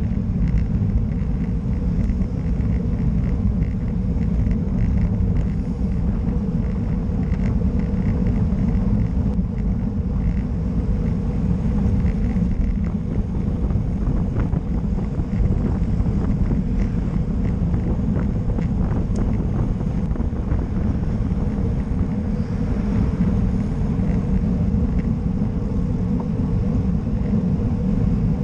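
Steady, heavy wind rumble on a bike-mounted camera's microphone while riding at speed with a group of road cyclists.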